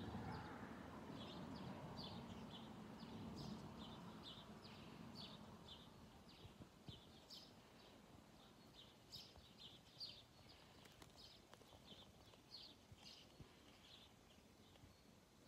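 Faint small-bird chirps, short and high, repeating about twice a second, over a low rumble that fades away during the first several seconds.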